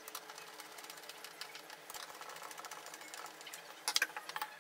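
Rapid small clicks and taps of a screwdriver and hands working the lid screws of a plastic project box, with a sharper cluster of clicks about four seconds in.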